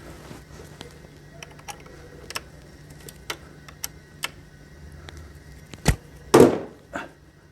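Work on a transmission valve body: scattered light clicks and taps of tools and screws being handled, then a sharp knock about six seconds in and a louder, longer clunk just after it.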